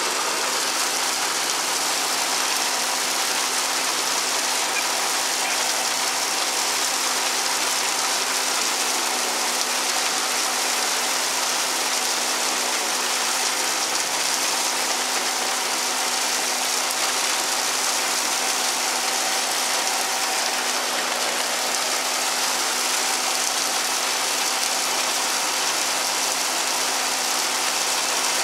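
Meyer forage wagon unloading chopped corn: its conveyor and beaters run steadily with a rain-like hiss of silage pouring out, over a steady engine drone.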